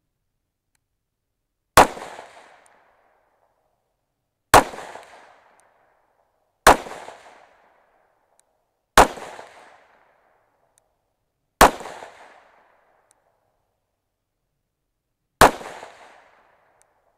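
Six shots from a Smith & Wesson 5.7 pistol, firing 5.7×28mm, in slow aimed fire spaced two to four seconds apart. Each sharp report is followed by a short echo that dies away within about a second.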